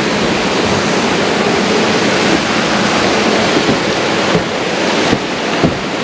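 Steady rushing of a small waterfall and stream, a loud even wash of water noise. A few light knocks of footsteps on wooden steps come in the second half.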